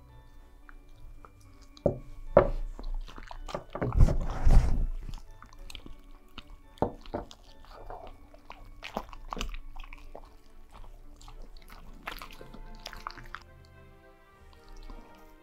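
Husky biting, crunching and chewing a hard dog treat close to a microphone, with background music. The crunches come in irregular clusters, loudest about four seconds in, and thin out near the end.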